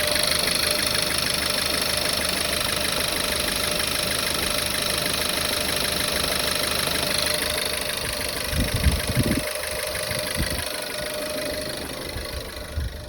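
Volkswagen Tiguan 1.4 TSI (CAXA) engine idling cold, with several heavy low thumps about two-thirds of the way through. The owner takes these for popping from a misfiring cylinder one, which he puts down to a leak somewhere.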